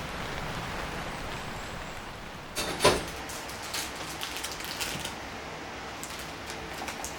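A steady hiss, then a sharp clatter with a brief ringing tone about two and a half seconds in, followed by scattered light clicks and knocks.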